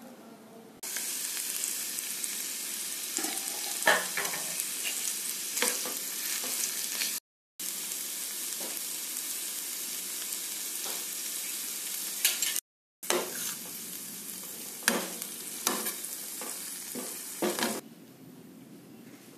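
Pumpkin pieces frying in hot mustard oil in a metal pan, sizzling steadily while a steel spoon stirs them, with sharp clicks and scrapes of the spoon against the pan now and then. The sizzle cuts out twice for a moment and stops shortly before the end.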